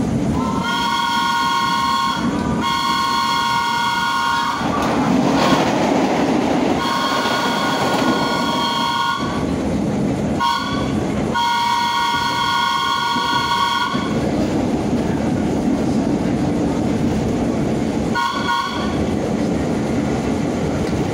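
A vintage AB Standard subway train sounding its multi-tone horn in a series of blasts, mostly long ones of about two seconds with a couple of short ones, over the steady rumble of the car running on the rails.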